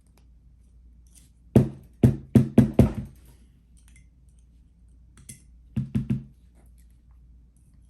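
Sharp knocks on a hard surface in two quick runs: five within about a second and a half, then three more a few seconds later. It is a gutted lock cylinder being rapped against the work surface to shake loose a driver pin and spring stuck inside.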